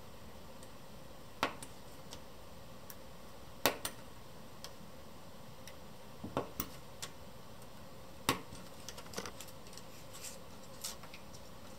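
Hobby knife blade pressing through the tabs of a photo-etched metal fret, each cut freeing a part with a sharp click: four loud clicks a couple of seconds apart, then a few fainter ticks near the end.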